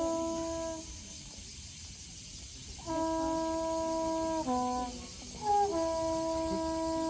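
A horn blown to call deer, holding long notes with a short run of changing notes in the middle and a break of about two seconds near the start.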